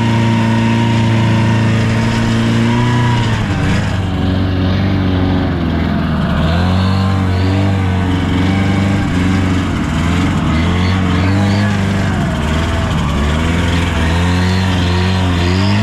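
A vehicle's engine running under way, steady for about three seconds, then its revs rising and falling again and again.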